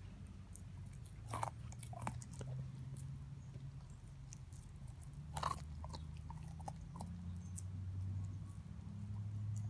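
Siberian husky gnawing on a raw steak bone, chewing with sharp cracks of teeth on bone; the loudest cracks come about a second and a half in, at two seconds and past the middle. A low steady hum runs underneath.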